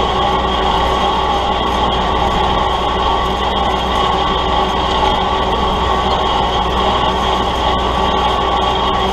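Kubota L3901 tractor's three-cylinder diesel engine running steadily at a constant working speed while pulling a field implement.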